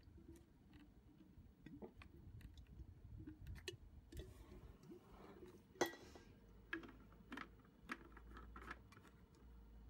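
Faint scattered clicks and taps of hands handling a brush cutter's plastic fuel tank, fuel hoses and carburettor parts, with one sharper click a little past halfway.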